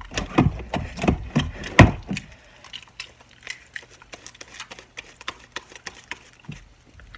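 Homemade glue slime being kneaded and pulled by hand, giving irregular sticky clicks and pops, loudest in the first two seconds and then fainter and scattered.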